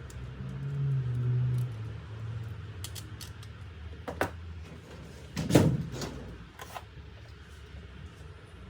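A low hum near the start, then a series of light clicks and knocks, the loudest a thud about five and a half seconds in.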